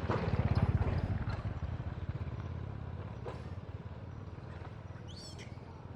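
A low, fast-pulsing motor rumble that swells about a second in and then slowly fades, like an engine passing by. A short, high squeak near the end.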